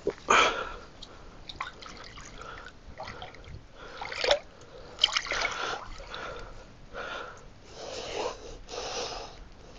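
Water splashing and sloshing in irregular bursts as a catfish held in a metal fish grip is dipped and swished in shallow water to rinse it.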